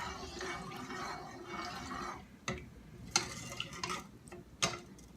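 Liquid sauce being stirred with a utensil in a container: swishing and scraping for about two seconds, then four sharp knocks spaced under a second apart.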